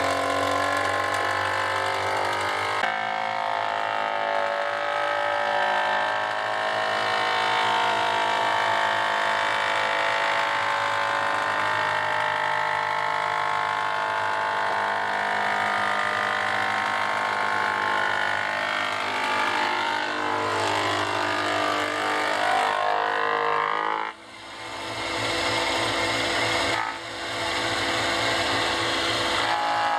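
Old cast-iron thickness planer running under power and planing a board: a steady mechanical whine with several shifting tones over the noise of the cut. The sound breaks off sharply about 24 seconds in and comes straight back with a different pattern.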